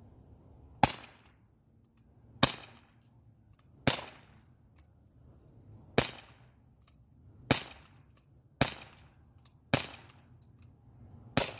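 Non-blowback Umarex Glock 19 Gen 3 CO2 BB pistol firing eight single shots, one every second or two. Each is a sharp crack with a short decaying tail.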